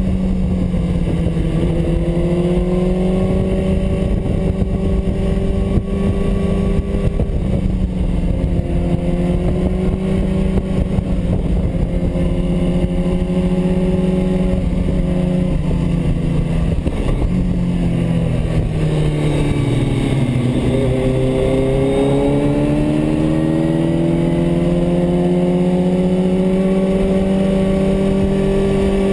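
Sport motorcycle engine running at steady revs under wind noise; about two-thirds through the revs drop as it slows and shifts down, then climb steadily as it accelerates again.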